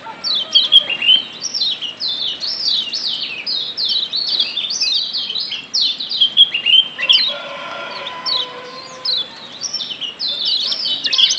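Kecial kuning (yellow white-eye, Zosterops) giving quick, sharp "ciak" chirps: short falling notes in a dense, continuous chatter. The chatter thins a little past halfway, then picks up again near the end.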